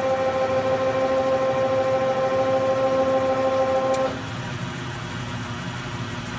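Blanchard 18-36 vertical spindle rotary surface grinder running with no load, its wheel spinning and table turning, giving a steady multi-tone whine. About four seconds in there is a click and the whine cuts off, leaving a quieter steady machine hum.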